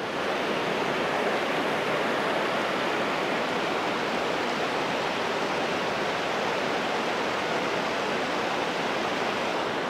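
Steady rush of water pouring over and below a dam spillway.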